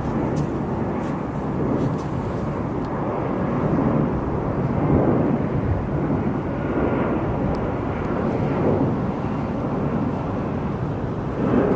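Jet airliner engines running, a steady rushing noise that swells and eases slightly, with a faint high whine in the second half.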